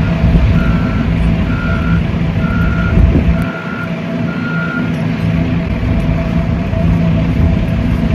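A vehicle's reversing alarm beeping, about one beep a second, six beeps that stop about five seconds in, over a steady engine rumble.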